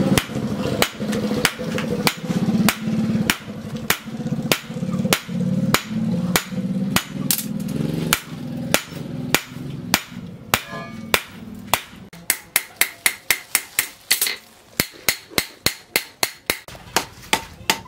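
Hand hammer striking red-hot disc brake rotor steel on a steel post anvil in steady blows, about two a second, quickening to about three a second in the second half.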